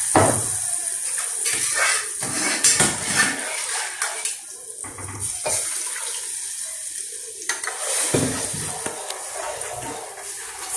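Metal spoon clinking and scraping against brass cooking pots while a small pot is emptied into a larger one and liquid is poured in and stirred, with a string of sharp clinks.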